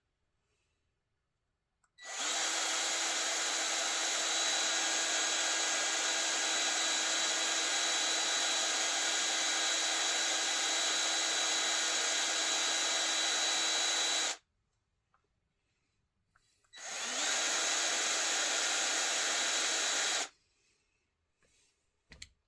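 Small handheld electric power tool running at a steady high speed. It runs for about twelve seconds, stops, then runs again for about three and a half seconds, spinning up quickly each time and cutting off sharply.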